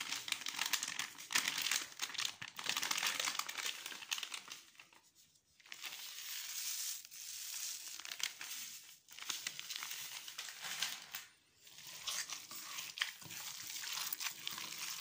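Hand kneading and squeezing raw minced meat with onion and spices in a stainless steel bowl, working in the salt for a hawawshi filling. It goes in bursts with a few short pauses.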